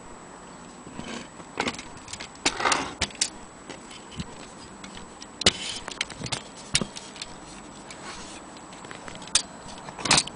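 Antique Corona typewriter being worked by hand: about a dozen sharp, irregularly spaced mechanical clacks and clicks, some with a short rattle after them.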